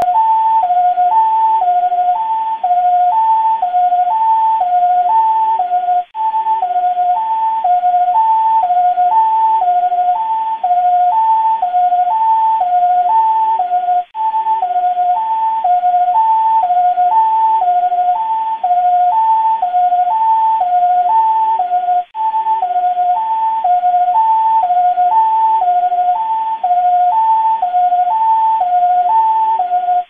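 Old-style two-tone police siren alternating steadily between a high and a low pitch, about once a second. It cuts out briefly every eight seconds or so.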